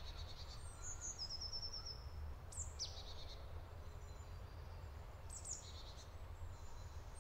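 Small songbirds calling faintly: a few high descending chirps and a short trill of quickly repeated notes about a second in, over a steady low rumble.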